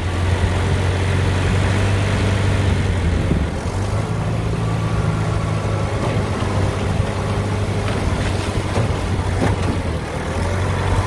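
Log skidder's diesel engine running steadily at a constant low pitch, with a broad rush of noise over it.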